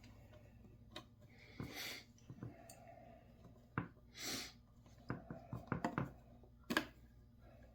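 Faint handling sounds of a fuel line being worked out of a chainsaw's fuel tank: scattered small clicks, taps and scrapes, with a quick run of clicks in the second half and two short hissing sounds.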